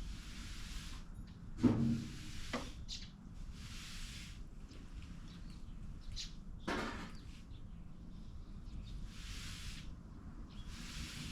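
Outdoor background with short high bird chirps, several hissy swishing sounds a second or so long, and two knocks, the louder one about a second and a half in.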